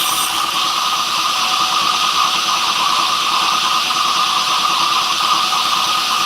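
A power tool running steadily, a constant loud whirring noise with no breaks.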